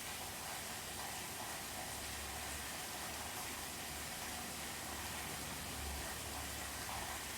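Steady rain heard from indoors, an even hiss with no sharp thunder crack, and a faint low rumble that swells a couple of times.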